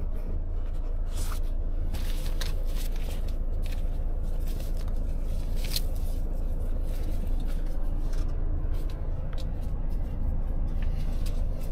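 Volvo FH truck running, heard as a steady low drone, with scattered light clicks and rustles over it.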